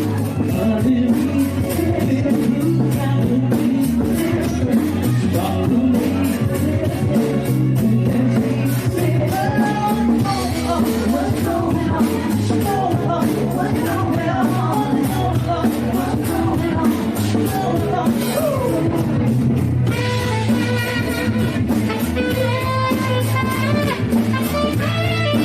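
Live cover band playing rock music: drums and a steady bass line under guitar, mostly instrumental, with singing coming back about 20 seconds in.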